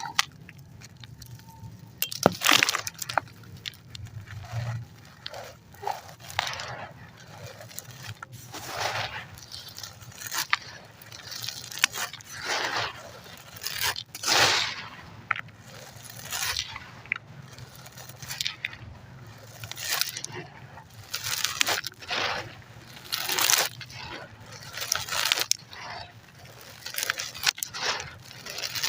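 Concrete and ash chunks crumbling and crushing in repeated gritty crunches, about one every second or two, some dry and crackly, some softer and pasty.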